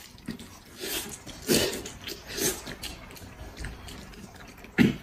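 Noodles being slurped and chewed, a few short noisy slurps with the loudest near the end.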